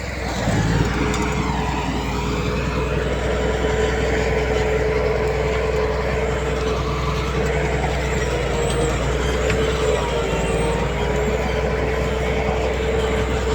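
Heavy diesel earthmoving machinery running steadily under load, a low engine drone with a steady whine above it.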